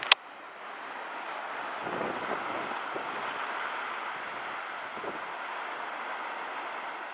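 Atlantic surf rushing and breaking over rocks at the foot of a sea cliff, a steady wash of foam that swells a little about two seconds in. A single sharp click right at the start.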